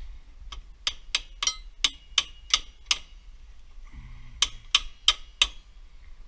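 Hammer blows on car suspension parts: eight sharp strikes at about three a second, a short pause, then four more.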